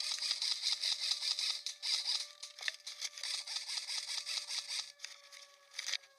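Leaves and twigs rustling and scraping close against a head-mounted camera as the wearer pushes through dense undergrowth. The rustling stops about five seconds in.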